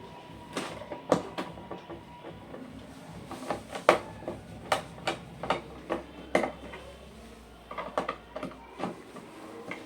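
Irregular light clicks and taps of small hard parts and tools being handled, with a faint low hum for a few seconds in the middle.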